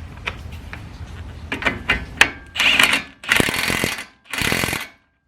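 Hand ratchet wrench clicking as it turns a 19 mm nut on a newly fitted outer tie rod end: a few scattered clicks, then three quick bursts of rapid ratcheting about half a second each.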